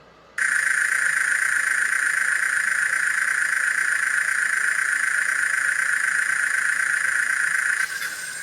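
Small electric motor of a mini RC excavator toy whining steadily. It switches on abruptly about half a second in and drops off near the end.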